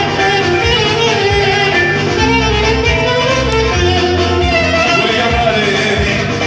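Clarinet playing a winding, ornamented melody over keyboard accompaniment holding low bass notes.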